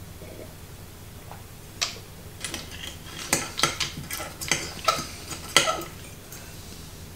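A sharp knock about two seconds in, then a fork and spoon clinking and scraping against a plate and the clam shells on it while twirling spaghetti: a dozen or so light, irregular clinks over about four seconds.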